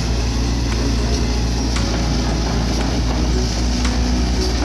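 Hitachi ZAX 110M excavator's diesel engine running steadily with a deep, even hum.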